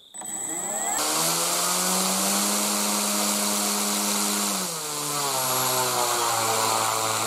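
Electric motor spinning a 16x8 Aerostar propeller up to full throttle. A rising tone as it spins up over the first second or so settles into a steady pitched hum with a rushing air noise. About four and a half seconds in, the pitch drops as the throttle comes back to a lower speed.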